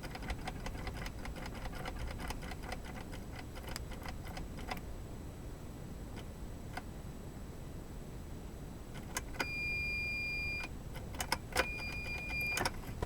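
Geo Metro clicking rapidly for about five seconds as the key is turned, with no cranking: the starter fails to turn the engine over. Later, two steady high electronic beeps, the first about a second long and the second shorter.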